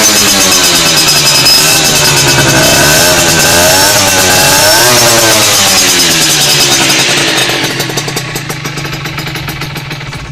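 CPI SM 50 moped's 50cc two-stroke engine running loud, revved up and down a few times, then quietening over the last three seconds.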